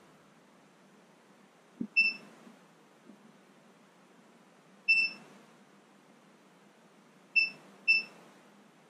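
Multimeter on its continuity setting giving short single-pitch beeps, four in all with the last two close together near the end, each one signalling that the circuit is closed while the spark advance is being set. A light tap comes just before the first beep.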